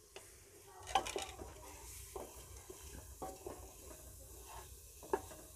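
Spatula stirring and scraping powdered spices (red chilli, turmeric, coriander, salt) into hot oil and onion paste in a pressure cooker, with a faint sizzle of the spices frying. A few irregular scrapes, the loudest about a second in.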